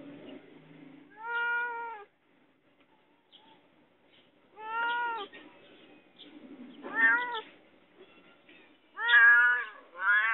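A cat meowing repeatedly: about five short meows a couple of seconds apart, the last two coming close together and loudest near the end.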